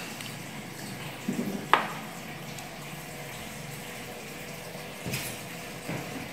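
Chopsticks clicking against a ceramic plate as a marinated chicken drumstick is set down in flour, a few light clicks about a second and a half in, then two fainter knocks near the end, over a steady background hiss.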